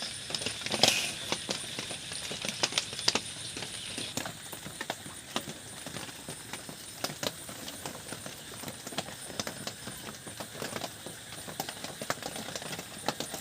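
People eating paratha and aloo dum: a run of irregular small clicks and taps from chewing and handling the food and plate, several a second.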